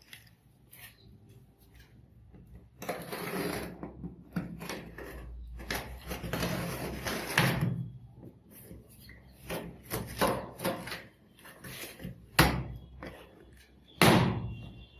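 Cardboard TV box being opened by hand: flaps and packaging scraping and rubbing, with scattered handling sounds and two sharp knocks near the end.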